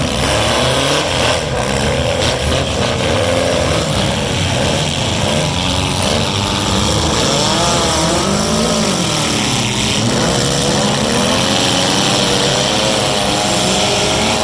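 Several four-cylinder demolition derby cars running and revving hard together, their engine pitch repeatedly rising and falling over a steady loud din.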